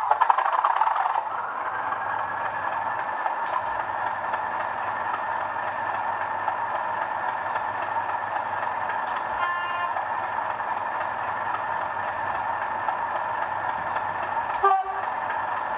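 Sound-fitted OO model of a Class 37 diesel locomotive, its sound decoder playing the English Electric engine running at idle through the model's small speaker. The engine sound settles from a louder, shifting start to a steady hum with high whistling tones about a second in. There is a brief clunk near the end.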